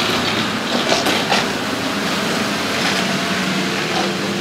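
Heavy vehicle running close by: a loud, steady rushing noise over a low hum, with a few sharp knocks about a second in.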